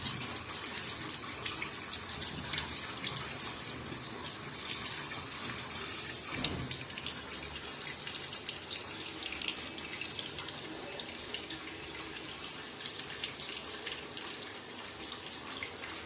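Water running from a hose into a washing machine tub, a steady splashing flow as the tub fills, with a brief louder rush about six and a half seconds in.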